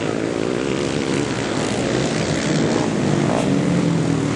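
Racing quad bikes' engines revving hard through a turn on a dirt track, their pitch rising and falling with the throttle.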